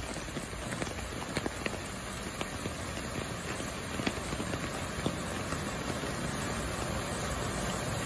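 Heavy rain pattering on a flooded street, with a Mercedes-Benz SUV driving through the deep flood water toward the listener, its engine and the rush of its splash growing slowly louder toward the end.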